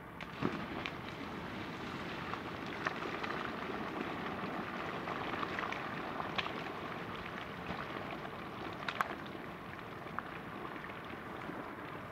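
Molten copper slag pouring from a tipped slag pot and running down the slag heap: a steady rushing noise with scattered sharp cracks, starting as the pour begins.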